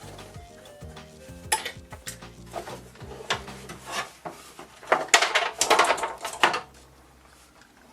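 Hard objects clattering and knocking together. There are a few separate knocks in the first half, then a dense run of clatter from about five to six and a half seconds in, going quieter near the end.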